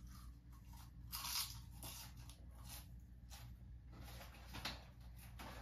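Faint brief rustling and scuffing noises over a steady low hum, the clearest about a second in and again near the end.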